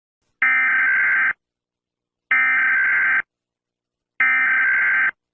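Emergency Alert System SAME header: three bursts of digital data tones, each just under a second long and about a second apart, that mark the start of an emergency alert broadcast.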